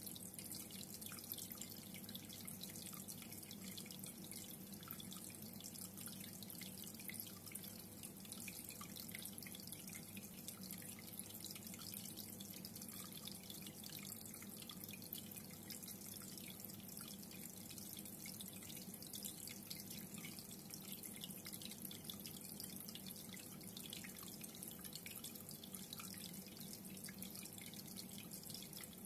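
Reef aquarium water trickling and dripping steadily, thick with tiny splashes, over a steady low hum from the tank equipment.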